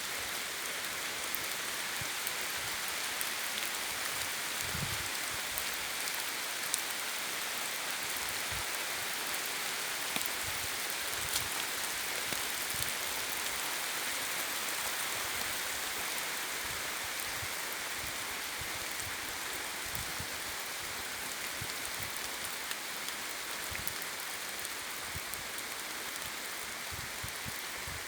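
Steady rain falling on a wet forest: a dense, even hiss of drops, with scattered sharper drops landing close by.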